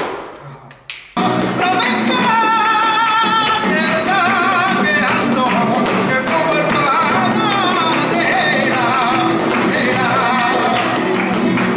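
Live flamenco soleá por bulería: a singer's wavering cante over flamenco guitar, with handclaps (palmas) and percussion. The music starts abruptly about a second in, after a fading ring.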